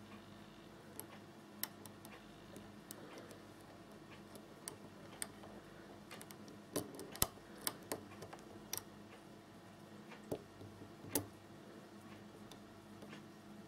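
Light, irregular metallic clicks of a lock pick working the pins of a five-pin Baldwin door lock during single-pin picking, the clicks coming most thickly and loudest a little past the middle, over a faint steady hum.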